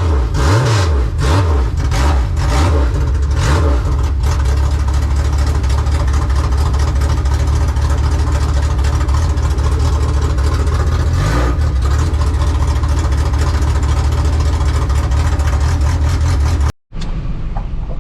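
Ford Thunderbird dirt-track stock car engine just fired up, revved several times over the first few seconds, then running at a steady speed. It cuts off suddenly near the end, and a quieter, different engine-and-outdoor sound follows.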